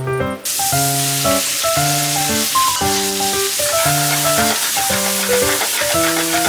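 Chicken and vegetables sizzling as they stir-fry in a hot pan, an even hiss that starts about half a second in, with background music playing throughout.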